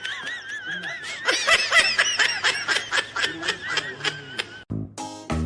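High-pitched laughter in rapid pulses over a wavering high tone. Music cuts in near the end.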